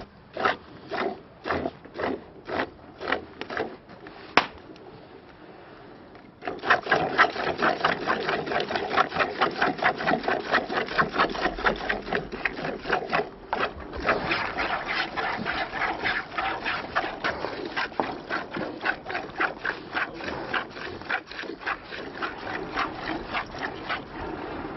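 Rhythmic rubbing or scraping strokes, slow at first at about two a second, then after a short pause fast and continuous from about six seconds in until near the end.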